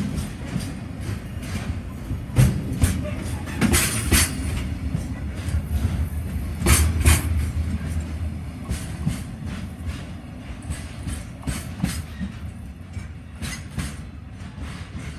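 Freight train's container wagons passing close, steel wheels clacking over the rail joints above a heavy rumble. The sound fades steadily through the second half as the end of the train passes and it draws away.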